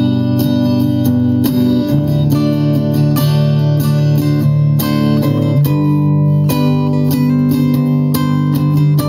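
Guitar music: a recorded rhythm guitar part of strummed chords plays back while an improvised single-note melody is played on guitar over it.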